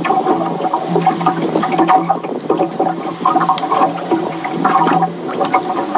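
Water rushing and sloshing continuously, with small splashes and clicks.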